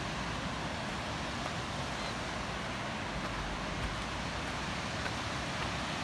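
Steady rushing noise of water pouring over a river rock cascade, with a slight low rumble of wind on the microphone a few seconds in.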